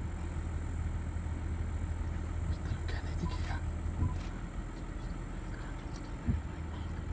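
Vehicle engine idling steadily as a low hum, with a couple of short knocks about four and six seconds in.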